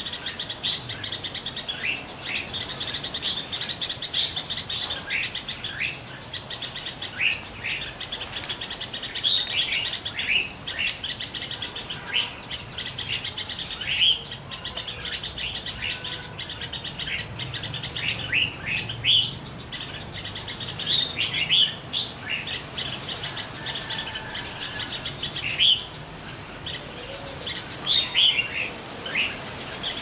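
Songbirds chirping: many short, sharp, high notes coming irregularly, over a steady high-pitched buzz.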